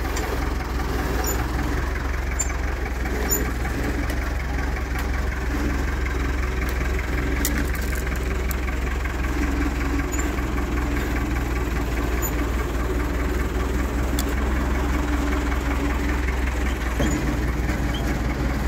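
Engine of the yellow lifting machine running steadily at idle while it holds the engine and transmission.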